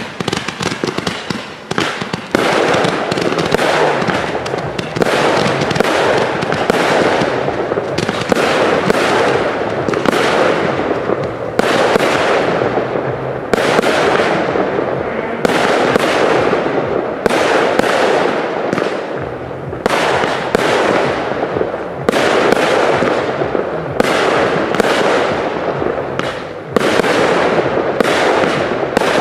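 Firework cakes being fired: a rapid crackle of shots for the first two seconds, then a steady run of launches and bursts about once a second, each bang trailing off.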